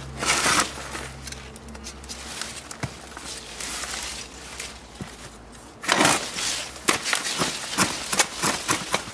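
Plastic plant pot scraping and knocking on concrete paving, with soil rustling and spilling, as the pot is worked off a tightly root-bound avocado plant. There are loud scrapes just after the start and about six seconds in, then a run of short scrapes and knocks.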